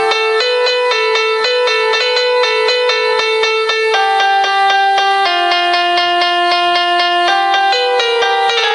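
Ringtone melody on a piano-like keyboard sound: a quick, even run of single notes, about four a second, rising and falling over a small range.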